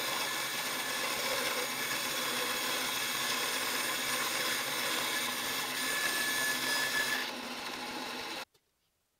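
Bandsaw running and resawing a thick curved walnut segment ring through its thickness to book-match it, a steady whirring saw noise. The noise stops abruptly about eight seconds in.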